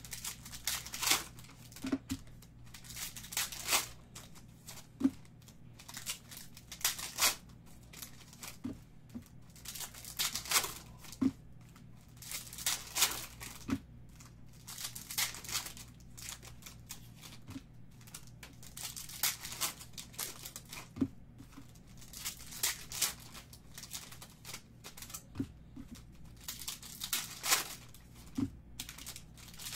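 Foil basketball trading-card packs being torn open and crinkled by hand: repeated short bursts of crinkling and tearing every second or two, over a low steady hum.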